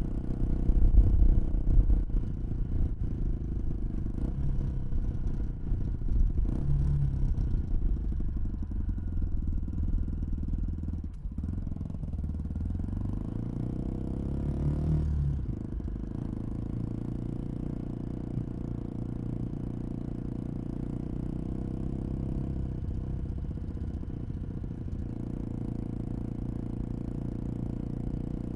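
1987 Honda XL250R's air-cooled single-cylinder four-stroke engine, with a custom exhaust and cone air filters, heard on board while riding slowly. The throttle rises and falls, revs climb about halfway through, then the engine settles into a steadier, quieter low-speed run.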